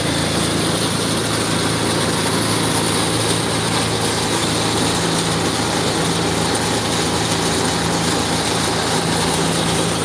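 Water tanker truck's engine running steadily, with the hiss of water spraying from its hose.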